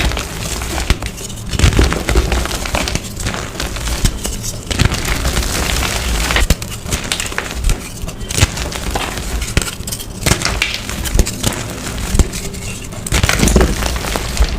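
Dyed gym chalk reform blocks being crushed: a dense run of crisp crunches and crackles as the pressed chalk breaks up and crumbles.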